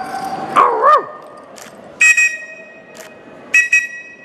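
A dog's short whining yelp that bends up and down in pitch, about half a second in. Two short, high, steady squeaks follow, about a second and a half apart.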